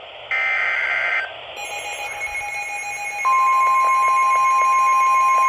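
NOAA Weather Radio alert tones: a last short buzzy SAME header data burst, then a fainter pulsing beep. About three seconds in, the steady 1050 Hz warning alarm tone starts and holds, the signal that a severe thunderstorm warning follows.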